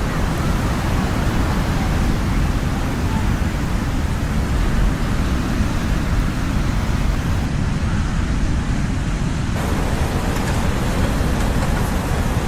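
Ocean surf recorded at the shore: a steady rushing roar with a heavy deep rumble and no separate wave crashes standing out, turning a little brighter in tone about three-quarters of the way through.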